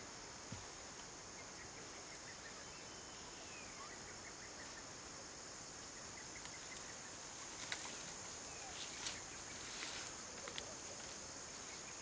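Steady, high-pitched insect chirring, with a few faint bird chirps and some soft knocks in the second half.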